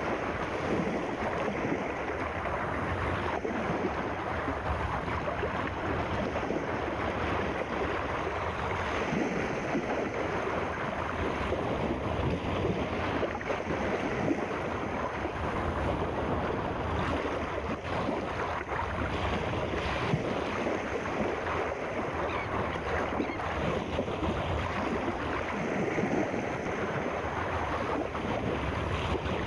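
Steady rushing water, an even wash of noise without pauses or swells.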